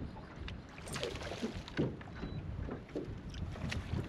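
Water splashing and lapping around a small aluminum boat as a hooked bass thrashes at the surface beside it, with scattered clicks and knocks, the loudest splashy spell about a second in.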